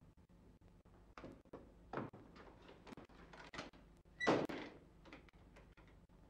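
A door being moved in a wooden room: a few short scrapes and knocks, the loudest about four seconds in with a brief squeak at its start. Faint crackle and hum of an old film soundtrack lie underneath.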